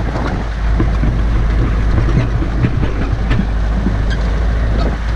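4x4 vehicle driving over a rough, rocky riverbed track: a steady low rumble of engine and tyres, with the body and suspension rattling and knocking unevenly over the bumps.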